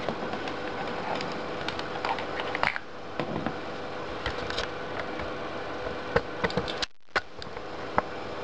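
Scattered clicks of keys being pressed on an Asus Eee PC netbook keyboard, over a faint steady hum.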